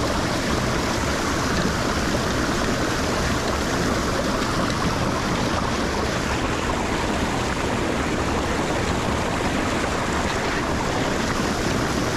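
Water rushing steadily and hard into a freshly unclogged lake drain, a dense, unbroken roar of flowing water.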